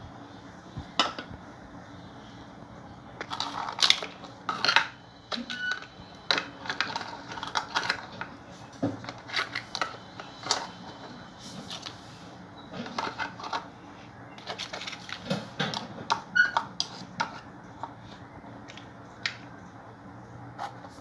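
Plastic toy cookware and toy food pieces clicking and clattering as they are handled and dropped into a small plastic toy pot. The knocks come irregularly in busy clusters, with quieter gaps.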